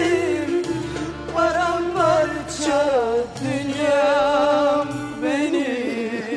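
A woman sings long, wavering notes with strong vibrato into a microphone over instrumental accompaniment. Her voice slides down at the ends of phrases, about halfway through and again near the end.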